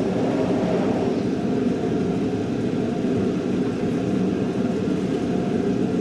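Steady background noise of a crowded classroom: many students talking at once, their voices blending into an even hubbub with no single voice standing out.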